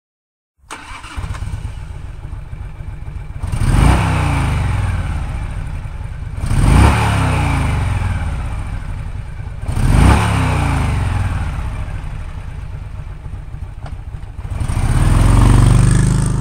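Harley-Davidson V-twin motorcycle engine idling with a lumpy beat, blipped up three times about three seconds apart, then held up in a longer rev near the end.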